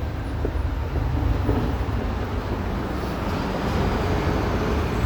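Steady city traffic rumble on a busy avenue, an even noise with no distinct events.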